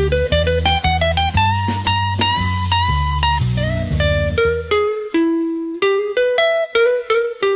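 Blues music: an electric guitar picking single notes over a bass line. About five seconds in the bass drops out and the guitar goes on alone.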